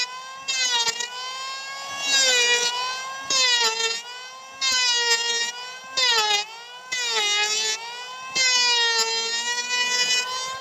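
Electric hand planer running with a high-pitched whine. About seven times the pitch sags and a louder cutting noise surges in as the blades bite into the wooden beam, then the whine recovers between strokes.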